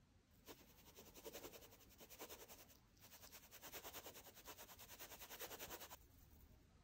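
Faint, rapid rattling of a stainless fine-mesh sieve being shaken to sift flour and cocoa powder onto batter. It breaks off briefly about three seconds in and stops about six seconds in.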